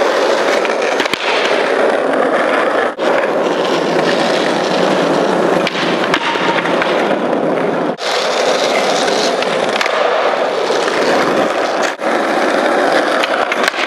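Skateboard wheels rolling over rough asphalt, a loud continuous roar that breaks off briefly three times, with a few faint clicks of the boards.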